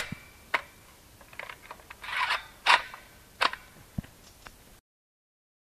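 Airsoft BB gun firing single shots: irregular sharp clicks and snaps, the loudest at the very start, with a brief rustle of leaves a little after two seconds. The sound cuts off abruptly near the end.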